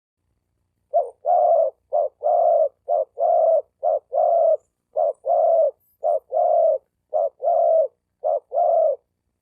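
Male spotted dove cooing: eight paired coos, each a short note followed by a longer one, about one pair a second, starting about a second in.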